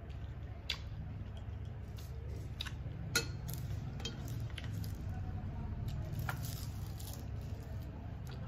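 Fingers mixing rice and fried neem leaves on a stainless steel plate: scattered short clicks and clinks against the steel with soft squishing, the loudest click a little after three seconds in. A steady low hum runs underneath.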